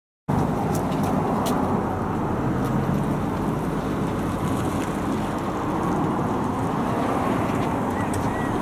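Steady road traffic noise, an even hum of passing cars with no single event standing out. The sound cuts out to silence for a split second at the very start.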